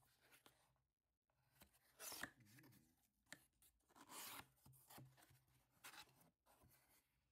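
Faint scraping and rubbing of corrugated cardboard as a shipping box's flaps are opened and an inner box is handled, with a few small taps. The two strongest scrapes come about two seconds in and just past four seconds.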